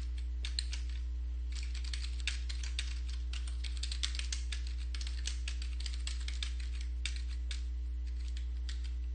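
Computer keyboard typing: runs of quick key clicks with short pauses between them.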